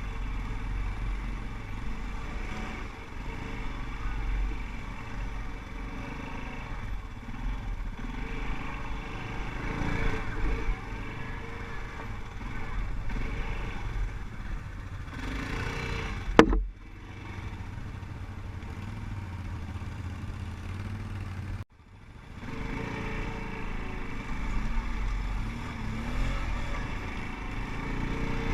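ATV engines running and revving unevenly, with a rumble that swells and eases. A single sharp knock cuts through past the middle, and the sound breaks off abruptly a few seconds later before resuming.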